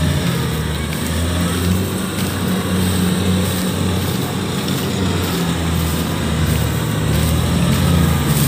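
Kubota DC-70 combine harvesters' diesel engines running steadily under load while cutting rice, a low drone with threshing-machinery clatter.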